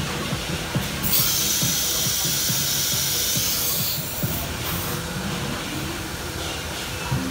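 Compressed-air hiss from a CNC router's automatic tool changer: one long blast of about three seconds, then a couple of short puffs, over background music.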